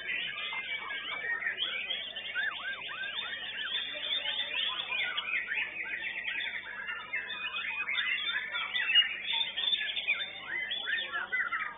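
White-rumped shamas (murai batu) singing in competition: a dense, varied stream of whistles, sweeping glides and fast trills, several birds overlapping.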